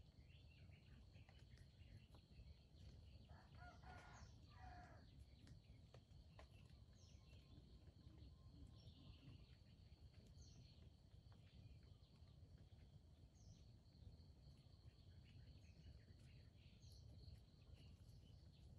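Red junglefowl rooster crowing once, faintly, about three seconds in, over a steady high insect drone and a few short high bird chirps.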